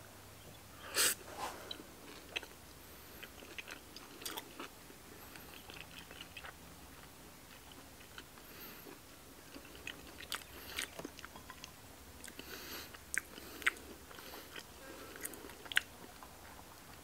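Close-up chewing of a mouthful of soft stir-fried black bolete mushroom: quiet wet mouth noises and lip smacks, with a few sharp clicks scattered through, the loudest about a second in.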